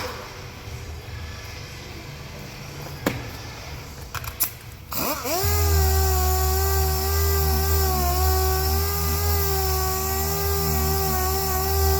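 A few clicks, then about five seconds in a power tool spins up with a rising whine and runs steadily at speed.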